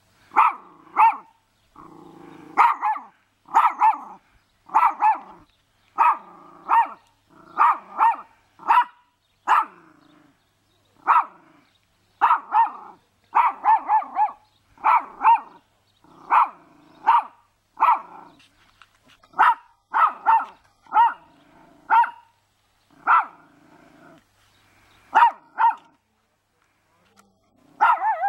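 Small terrier barking over and over in short, sharp, high barks, about one to two a second, with a low growl between barks at times; the barking pauses near the end.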